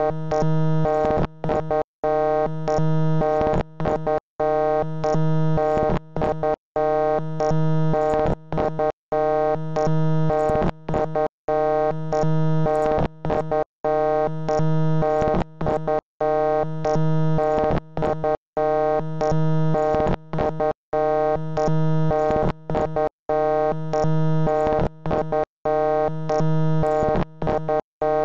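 Harsh synthesized electronic tone, a steady buzzing chord that keeps cutting out for a split second and coming straight back, about once a second.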